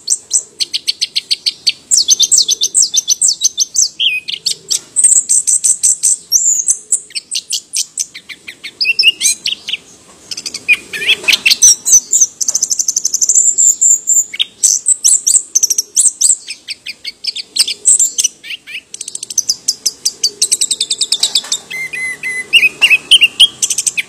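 Chestnut-capped thrush (anis kembang, Zoothera interpres) singing: rapid, varied phrases of high trills, chirps and whistles, each a second or two long with brief pauses between.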